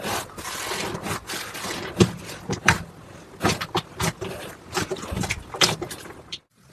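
Slime being squeezed and pressed by hand, making irregular sticky pops and crackles over a wet squishing noise.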